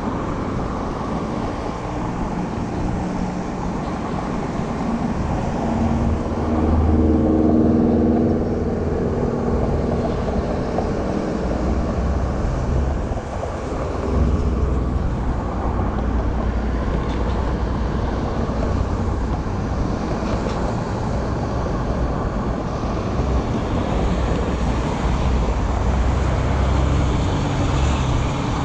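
City street traffic: a steady rumble of passing cars and engines. About six to nine seconds in, one vehicle's engine grows louder as it passes close by.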